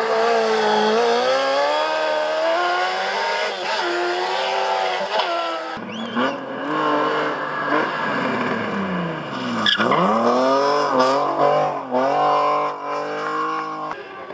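Hill-climb race car engines revving hard, the pitch climbing and dropping with each gear change. About six seconds in the sound changes abruptly to another car, and about ten seconds in the engine pitch dips deeply before climbing again.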